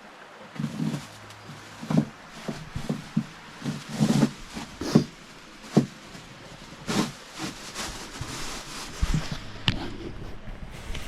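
Irregular rustling, rubbing and knocks of camping gear being handled as a tarp is put up, the loudest bursts about two, five and seven seconds in.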